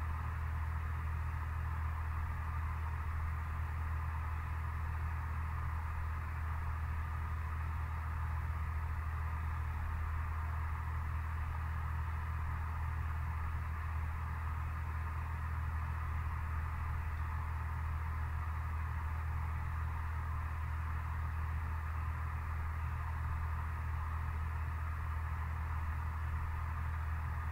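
A steady low hum with a band of hiss above it, unchanging throughout.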